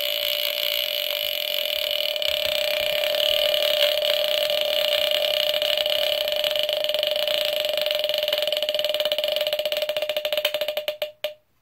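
Mechanical squealer horn of a c.1975 Sears Early One smoke detector (rebranded BRK SS-74R) sounding its alarm: a continuous, very raspy squeal whose intensity rises and falls, then stutters and cuts off about eleven seconds in. It went off as a match was lit for a smoke test, and the owner is unsure whether the smoke or a false alarm set it off.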